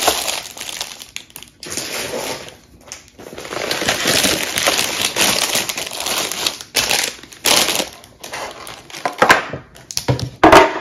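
Cardboard snack boxes and their packaging rustling and crinkling as they are handled and unpacked, with a few sharper knocks and scrapes in the second half.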